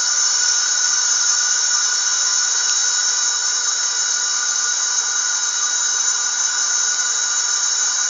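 Recorded womb sound played back for a newborn: a steady hiss-like rushing noise with a few faint steady tones in it and no bass, unchanging throughout.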